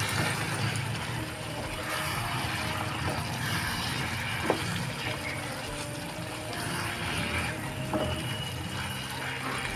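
Chicken curry with gongura leaves, onion and tomato sizzling in a nonstick pan as it is stirred with a spatula, with two sharp knocks of the spatula on the pan, about four and a half and eight seconds in. A steady low hum runs underneath.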